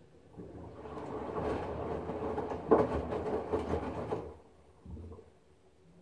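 LG front-loading washing machine drum turning for about four seconds, water sloshing and laundry tumbling inside, then stopping, followed by a short low thump about five seconds in.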